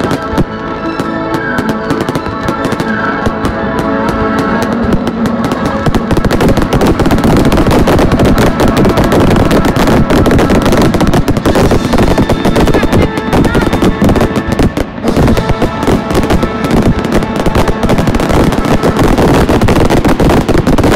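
Fireworks going off in a rapid, dense barrage of bangs and crackles that thickens about five seconds in and keeps up almost without pause, with music playing underneath.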